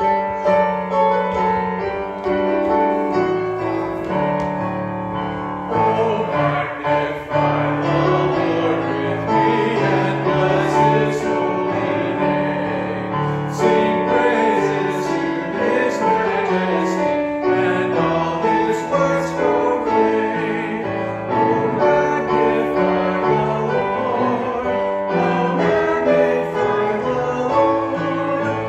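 A hymn played on piano, with voices singing along.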